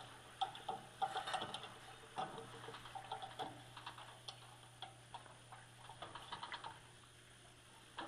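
Light, irregular metallic clicking and ticking as a screwdriver turns the set screws of a blower-wheel hub puller a little at a time on a furnace blower wheel's hub. The clicks thin out near the end.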